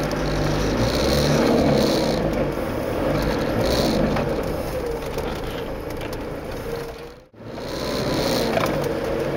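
Land Rover Discovery's engine running under load as it crawls over rough off-road ground, heard from inside the cabin. The sound drops out sharply for a moment about seven seconds in, then picks up again.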